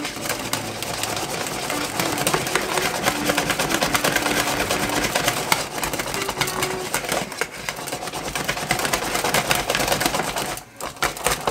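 Wire whisk beating gingerbread batter in a bowl by hand: a fast, continuous clatter of the wires working through the batter and against the bowl. It stops briefly near the end, then starts again.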